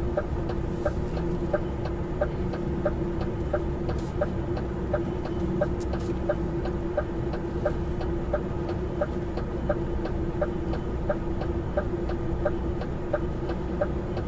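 Semi-truck reversing with its diesel engine running in a steady hum, and a regular train of short pips, about three a second, from a reversing warning signal.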